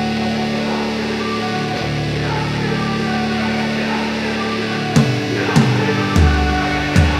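Background music, guitar-led rock: held chords, then about five seconds in drum hits and falling low guitar notes come in.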